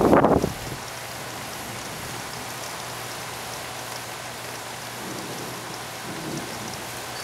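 Steady rain falling, an even hiss. A loud burst of low noise dies away about half a second in.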